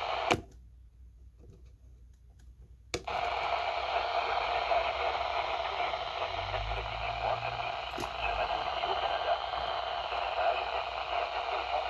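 Radio receiver static: a steady hiss that cuts out with a click just after the start and comes back with another click about three seconds in.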